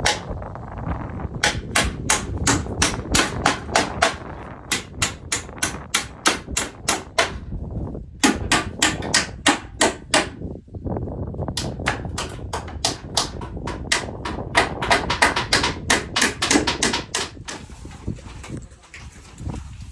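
Hammer blows in quick runs of about four a second, stopping briefly three times between runs, during work on a bamboo bed frame.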